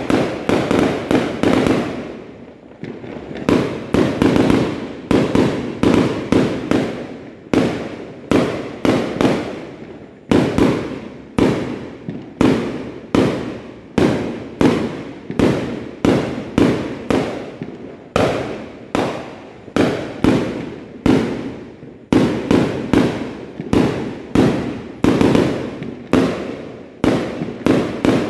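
Aerial fireworks bursting overhead in quick succession, about two loud bangs a second, each trailing off quickly, with a few brief lulls.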